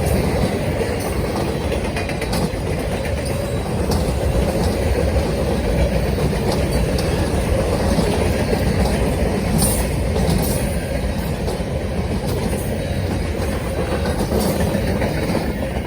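Norfolk Southern freight train rolling past, a steady loud rumble of steel wheels on rail with light clicks from the cars.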